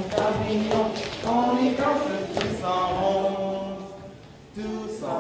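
A group of children singing or chanting together in unison, with an adult voice among them, echoing in a large hall. The voices break off briefly near the end, then start again.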